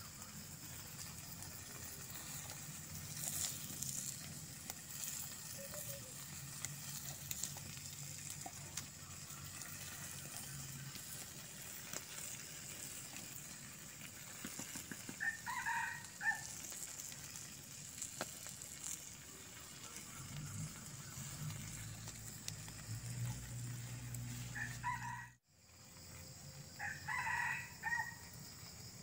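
A rooster crowing in short pitched calls about halfway through and twice more near the end, over a steady high-pitched hiss.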